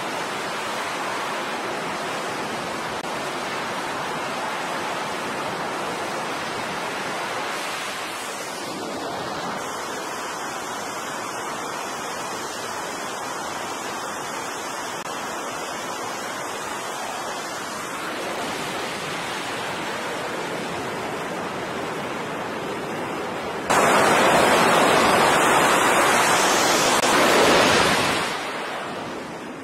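Fighter jet engines running on an aircraft carrier's flight deck as a steady rush of noise. About 24 s in the noise jumps suddenly much louder as an F/A-18-type jet runs up to full power for a catapult launch, then fades away as the jet leaves the deck.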